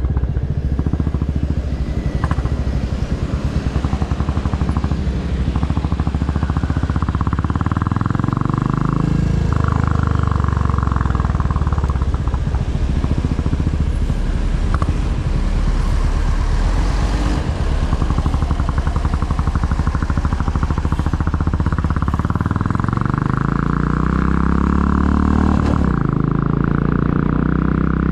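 Royal Enfield Classic 350's single-cylinder engine running under way on the stock exhaust. Its pitch dips and then climbs as the bike accelerates, about a third of the way in and again near the end.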